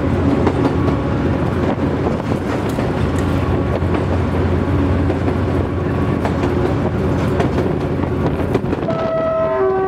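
Diesel-electric locomotive running under way, heard from its side: steady engine drone with wheel and track noise. About nine seconds in, the locomotive's horn starts to sound.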